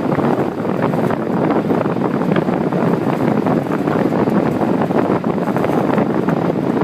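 Blizzard wind blowing hard across the microphone: a loud, steady rush of wind noise with no let-up.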